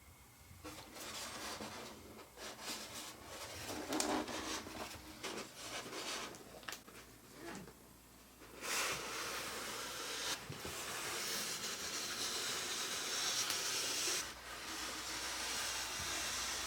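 Packaging being handled during an unboxing: irregular rubbing and scraping for the first half, then a steady rustling hiss from about nine seconds in.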